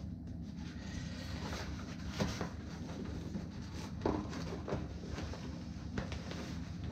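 Rustling and a few soft knocks as a foam-padded nylon divider is handled and pushed down into a motorcycle tank bag, over a steady low hum.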